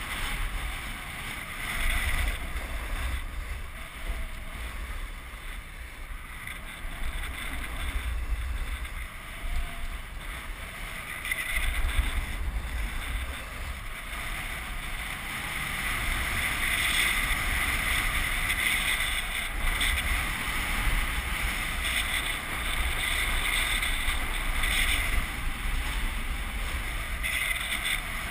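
Snowboard sliding and carving down packed groomed snow, its base and edges hissing and scraping, the scrape swelling in the second half. Wind buffets the camera's microphone with a low rumble in uneven gusts.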